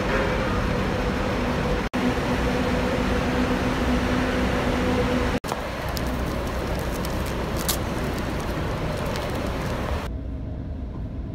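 Traffic noise at a bus bay, with buses running and a steady engine hum through the first half. The sound breaks off and changes abruptly a few times.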